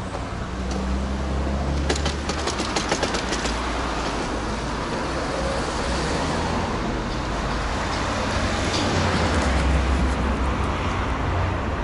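Steady traffic and road noise mixed with wind on the microphone, heard while riding a bicycle along a street. A short run of rapid ticks comes about two seconds in.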